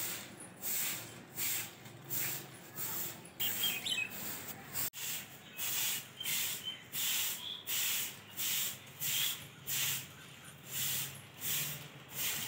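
Short-handled broom sweeping dry leaves over a paved courtyard floor: rhythmic swishing strokes, about two a second. Birds chirp faintly in the background.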